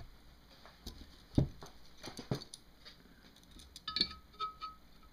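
A metal caliper being handled and set down across a motorcycle cylinder head: a few light knocks, then a cluster of small metallic clicks with a faint ring about four seconds in.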